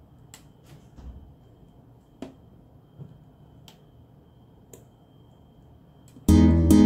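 Faint, scattered clicks of metal alligator clips and test leads being handled and unclipped, five or so over several seconds. Loud strummed acoustic guitar music comes in suddenly near the end.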